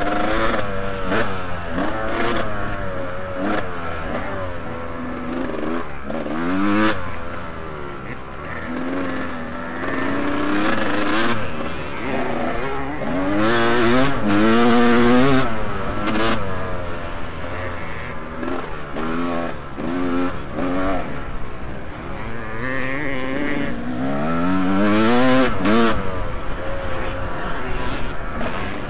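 Several motocross bikes racing, their engines revving up and dropping again and again as they accelerate and shift. The engines are loudest about halfway through and again near the end.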